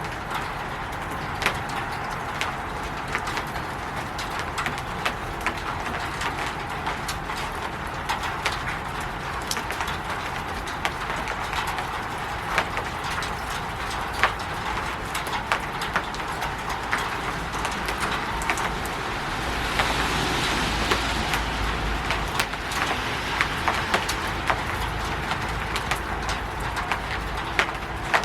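Rain falling on a roof: a steady patter with many sharp, separate drip ticks, swelling briefly louder about two-thirds of the way through.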